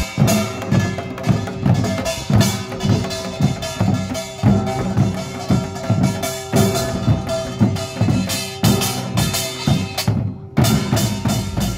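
Korean pungmul percussion band playing: janggu hourglass drums and buk barrel drums beating a driving rhythm of about two strong strokes a second, with kkwaenggwari small brass gongs clanging over them. The playing breaks off for a moment near the end, then picks up again.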